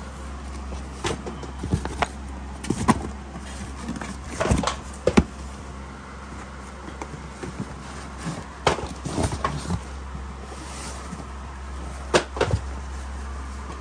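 Cardboard product boxes being handled and shuffled in a shipping carton: scattered rustles, taps and knocks of cardboard, with a cluster of louder knocks about five seconds in, over a steady low hum.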